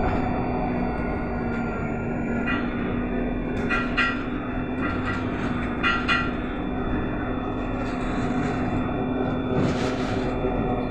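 Ride inside a BKM-321 electric trolleybus in motion: its traction drive hums with a steady tone under the road and body noise. A few short rattling clanks come about four and six seconds in, and a brief hiss near the end.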